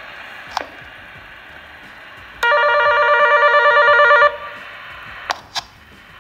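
Receiver hiss, then a loud buzzing call tone from a 27 MHz toy walkie-talkie, picked up and played through an ICOM radio's speaker. The tone lasts about two seconds with a fast warble. A couple of sharp clicks follow.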